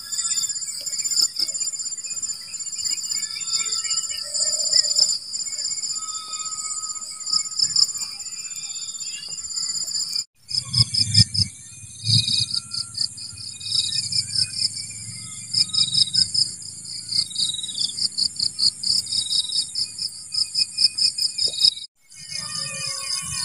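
Field insects trilling and chirping: a steady high buzz with fast, evenly pulsed chirps over it and other, lower chirps. The sound breaks off briefly twice, and after the first break a low rumble runs underneath.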